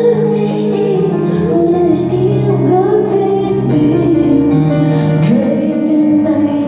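A woman singing a slow song live, her voice gliding up and down over low chords held for a second or more at a time.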